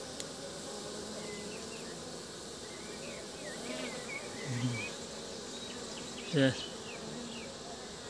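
Honeybees buzzing in a steady hum at the hive entrance, the bees fanning their wings on the landing board to cool the hive.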